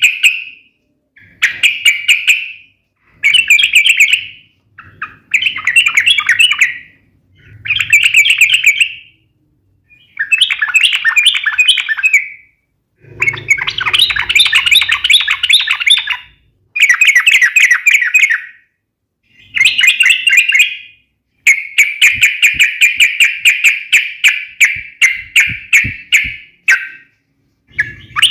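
Yellow-vented bulbul (trucuk) singing loudly in a series of bubbly, sharp phrases, each a second or two long with short pauses between. About two-thirds of the way in, it breaks into a long run of fast repeated chattering notes, the sharp 'fighting' song used to provoke other trucuk into answering.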